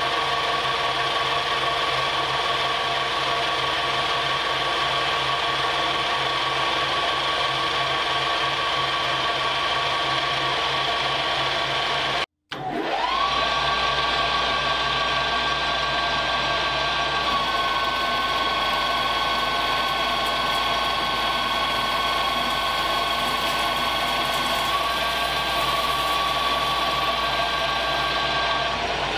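Paulimot PM4000 metal lathe running with a steady high whine and hiss while turning chips. A little before halfway the sound cuts out for a moment to silence, then the whine rises back up to speed; the pitch dips slightly around halfway and rises again near the end.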